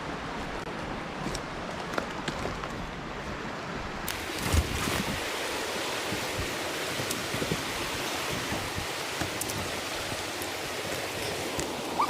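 Steady rush of a mountain stream and small waterfall, fuller and brighter from about four seconds in, with a few light clicks over it.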